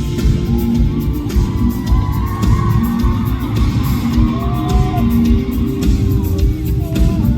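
Live rock band playing loud, heard from the audience in a large hall, with a wavering melody over a heavy, steady bass and drum backing.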